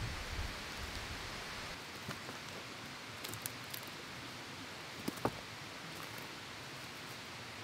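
A soft low thump as a moss-covered load on a wooden carrying frame is picked up, then light rustling and a few sharp footstep clicks as it is carried up rocky, grassy ground, over a steady rushing background.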